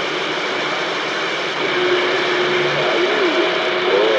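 Two-way radio receiver hissing with static between transmissions, with faint wavering tones from a weak, distorted signal coming through the noise from about a second and a half in.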